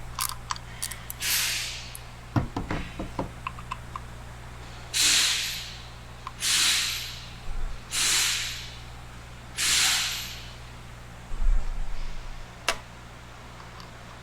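Hand-tool clicks and metal knocks as the oil control valve's retaining screw is worked loose with an Allen key, then four short hissing bursts, each about a second long and fading away, and a single sharp click near the end.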